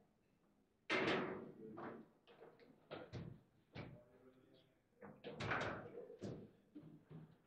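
Table football rally: sharp knocks and clacks of the ball being struck by the plastic men and bouncing off the table walls, the first loud hit about a second in and a quick cluster of hits near the end.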